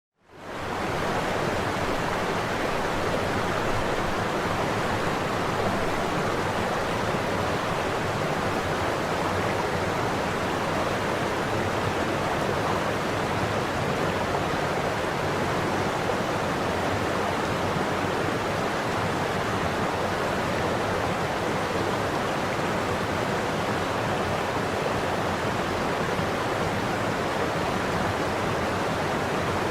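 Waterfall: a steady, even rush of falling water that fades in over the first second.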